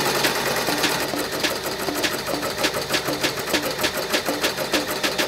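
Ricoma TC-1501 15-needle commercial embroidery machine running and stitching, a fast, even rhythm of needle strokes.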